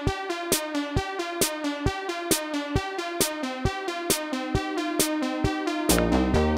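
Electronic background music with a steady drum-machine beat of about two strokes a second under held synthesizer notes; a deep bass line comes in near the end.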